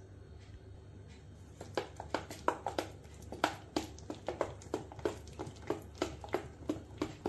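A metal spoon stirring thick lentil batter in a stainless steel bowl, clicking and scraping against the bowl about three times a second, starting about a second and a half in.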